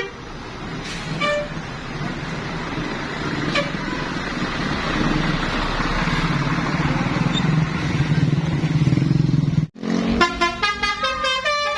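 A bus approaching with engine and road noise that grows steadily louder, with a short horn toot about a second in. After a sudden break near the end, a 'basuri telolet' multi-tone bus horn starts playing a quick melody of changing notes.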